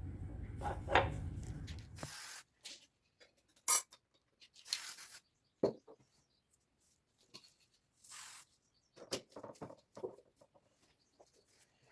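A low steady hum that cuts off about two seconds in, followed by scattered clicks, knocks and short hisses of metal parts and tools being handled, one knock sharper than the rest.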